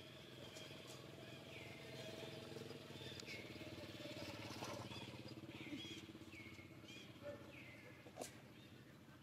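Faint repeated animal calls: a short high note that falls then holds, about once a second, over a low steady drone like a distant engine.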